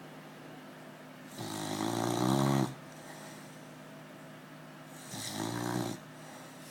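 Beagle snoring in her sleep: two pitched snores a few seconds apart, the first about a second long and louder, swelling as it goes, the second shorter and softer.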